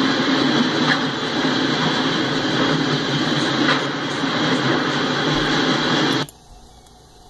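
A freight train of autorack cars rolling past close by: a steady noise of steel wheels running on the rails. About six seconds in the sound drops away abruptly to a faint hiss.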